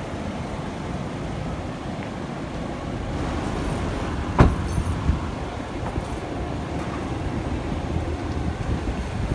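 Street traffic noise, a steady low rumble with passing vehicles. One sharp knock about four and a half seconds in stands out above it.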